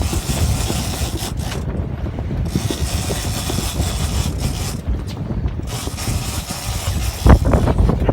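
A fishing reel ratcheting as line is worked, over a steady low rumble, with a sharp knock about seven seconds in.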